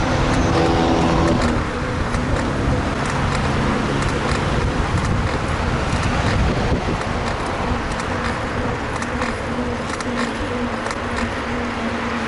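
Road traffic noise, with a motor vehicle's engine hum that ends about a second and a half in, over steady road noise.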